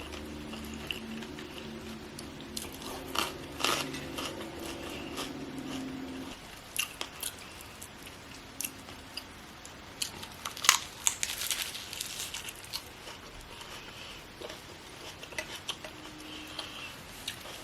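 Close-up chewing and crunchy bites of food, with sharp crunches clustered a few seconds in and again past the middle. A low steady hum sits under the first six seconds and stops suddenly.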